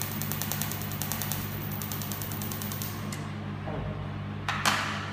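300-watt pulsed laser welder firing, a rapid even train of sharp ticks at about ten a second over a steady machine hum, stopping about three seconds in. A short hiss follows about four and a half seconds in.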